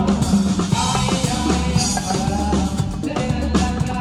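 Live band music with a steady drum beat, heard close up to hand percussion: a hand drum and timbales struck with the hands.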